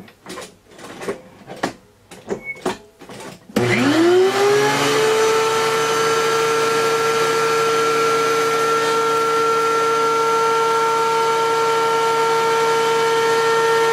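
Several light knocks and clicks of wood being handled. About three and a half seconds in, a woodworking machine's electric motor switches on, spins up with a rising whine, then runs at a steady high pitch.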